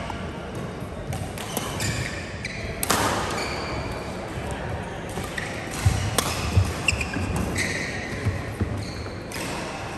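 Badminton play: racket strings striking the shuttlecock with sharp cracks, the loudest about three seconds in and a quick cluster around six to seven seconds, with sports shoes squeaking briefly on the court floor in between.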